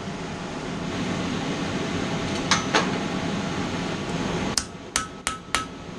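Hammer blows on hot steel over an anvil: two strikes about two and a half seconds in, then four quicker ringing strikes about three a second near the end. A steady rushing noise runs under the first part and stops just before the quick strikes.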